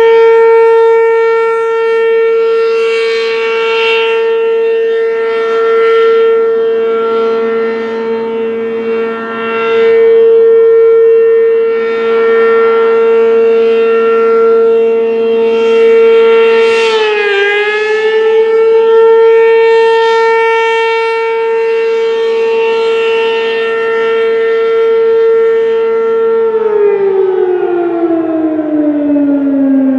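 ASC RM-127 rotating outdoor warning siren sounding a steady tone, its loudness swelling and fading as it turns. About two-thirds of the way through, the pitch dips briefly and recovers. Near the end the tone starts falling steadily as the siren winds down.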